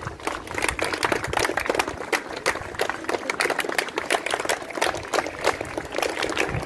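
Crowd applauding with dense, steady clapping.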